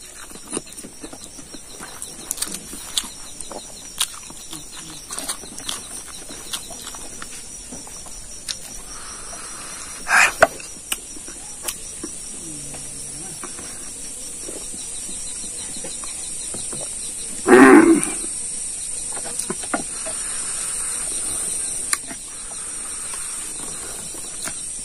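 Chewing and mouth-smacking of a man eating rice and pork trotter with his hands, with many soft clicks, over a steady high-pitched insect chorus. Two brief louder sounds break in, one a little before the middle and one about three quarters of the way through.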